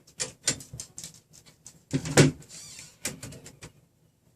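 Irregular small clicks and knocks of metal printer parts being handled, as threaded rods are adjusted and their spacing measured with calipers. The loudest knock comes a little over two seconds in.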